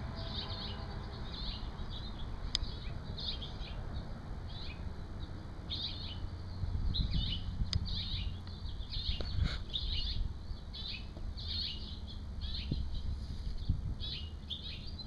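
Small birds chirping over and over, short high chirps, some dropping in pitch, coming several times a second, with a low rumble underneath.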